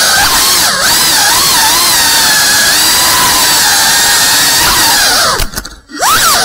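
FPV racing quadcopter's brushless motors and propellers whining, the pitch rising and falling as the throttle changes. Near the end the whine drops out for about half a second, the throttle briefly chopped, then it spools back up with a sharp rise in pitch.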